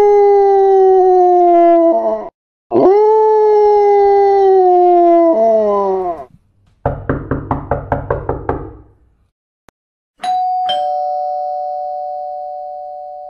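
A string of played sound effects meant to set off a dog. First come two long howls of about three seconds each, each sliding slightly down in pitch and dropping away at the end. Then a quick run of short pulsing sounds, about six a second for two seconds, and finally a two-note ding-dong doorbell chime, high then low, that rings on and slowly fades.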